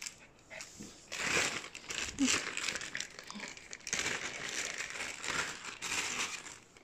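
Gift wrapping crinkling and rustling in irregular bursts as a present is pulled open, starting about a second in and stopping shortly before the end.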